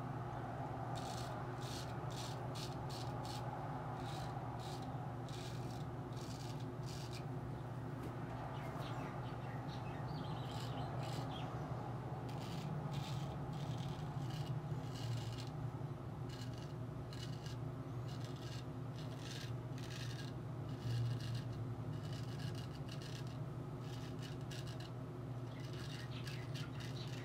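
Straight razor scraping through lather and stubble: runs of quick, crisp rasping strokes with short pauses between them, over a steady low hum.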